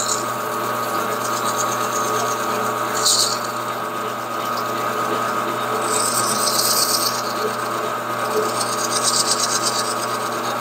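A metal lathe running with a steady hum while a strip of fine abrasive cloth is held against the spinning camshaft, polishing rust off the lobes and journals. The cloth gives a rough rubbing hiss that swells about three seconds in, again around six to seven seconds, and near the end.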